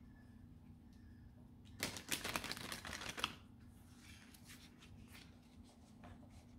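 A deck of oracle cards shuffled by hand: a quick run of card flicks starting about two seconds in and lasting about a second and a half, then softer handling of the cards.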